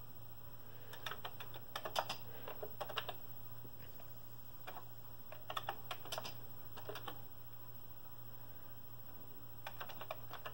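Keys clicking on a Commodore VIC-20 keyboard as a line of text is typed, in three short runs of keystrokes, over a low steady hum.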